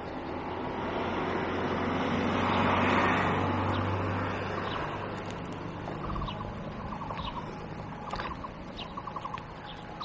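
Railway level-crossing warning bell dinging in a repeating pattern, faint under traffic, with a car passing on the road and loudest about three seconds in.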